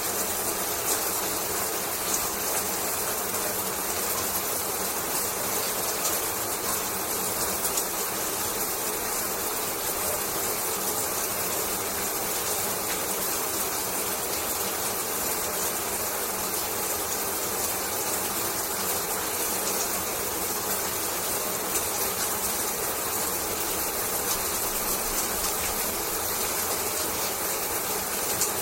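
Shower running steadily: an even hiss of falling water with faint scattered ticks of drops, unchanging throughout.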